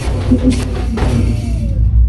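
A group of dhak, the large Bengali barrel drums, beaten together with thin sticks in a loud, driving rhythm.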